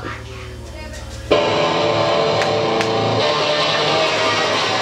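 Live rock band starting a song: after a quieter first second, the full band comes in loud and sudden about a second in, electric guitar over drums.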